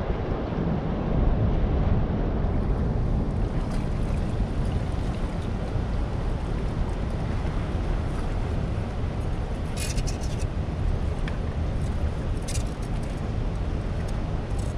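Wind buffeting the microphone over the steady rush of churning dam tailwater, with a couple of brief clicks about two-thirds of the way through.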